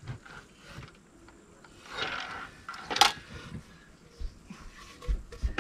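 Handling noises of a square timber post being shifted on and lifted off a mitre saw's table: a short scraping rub, then one sharp wooden knock about three seconds in, and a few small knocks near the end.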